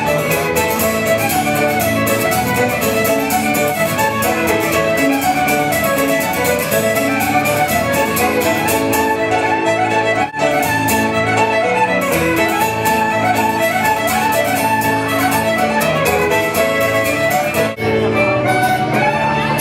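Celtic fiddle music: two fiddles play a quick run of notes together over an acoustic guitar.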